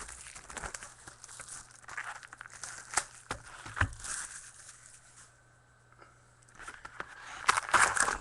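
Plastic wrapping on a box of trading cards being torn open and crinkled, with crackles and a few sharp clicks. There is a short lull in the middle, then louder crinkling near the end.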